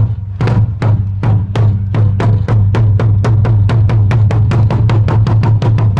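Large barrel drum beaten with two wooden sticks in a rapid, even roll of deep strikes that gradually speeds up.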